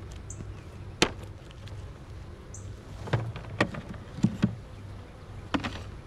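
Honeybees buzzing steadily around an open hive, broken by several sharp wooden knocks and clicks as a wooden hive frame is handled and set into the hive box. The loudest knock comes about a second in.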